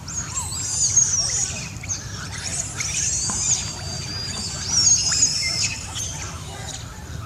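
Long-tailed macaques giving high, thin squealing screams: several short calls near the start, then one drawn-out squeal wavering in pitch for about three seconds, with a steady low rumble underneath.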